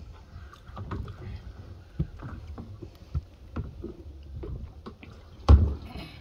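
Hollow knocks and bumps as a large blue plastic drum is handled and shifted against a boat's bow deck, with one heavy thump about five and a half seconds in.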